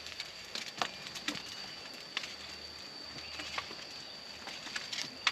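Open wood fire crackling with scattered sharp snaps and clicks as the embers are raked over with sticks. A steady high whine runs behind it.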